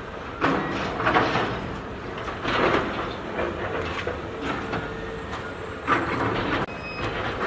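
Heavy demolition machinery working, with irregular surges of scraping and clattering over a steady engine hum.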